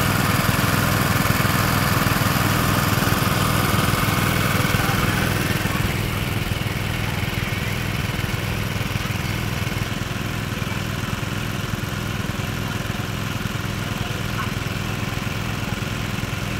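Small engine of a water pump running steadily, pumping water out of a pond so the fish can be caught. Its level drops a little about six seconds in.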